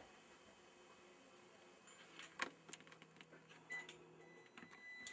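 Near silence: faint room hiss, broken by one sharp click about halfway through and a few fainter clicks after it.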